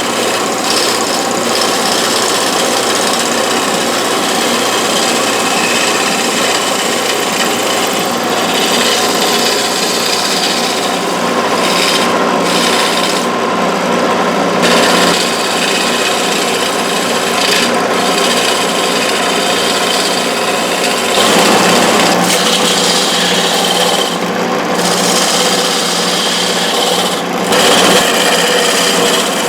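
Wood lathe running, its motor humming steadily, while a turning tool scrapes and cuts the spinning wood in a continuous rasping noise that gets louder about two-thirds of the way through.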